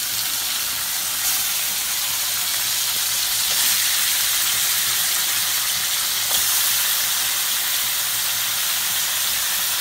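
Marinated Bombay duck (bombil) fish sizzling in hot oil in a kadhai, just added to the tempering: a loud, even hiss with an occasional faint tick.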